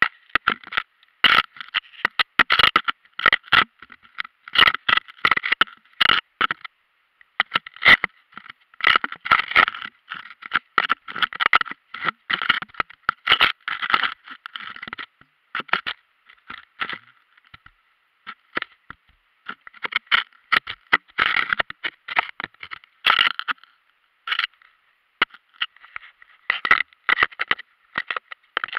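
Handling noise from a hand-held action camera: its case scraping and knocking against hands and rock in dense, irregular clusters of clicks, with a few short quiet stretches, the longest a little past halfway.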